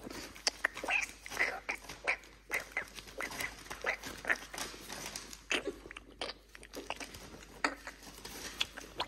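Month-old Doberman puppies mouthing and chewing at a hand and clothing: an irregular run of small clicks and smacks, with the odd short puppy squeak.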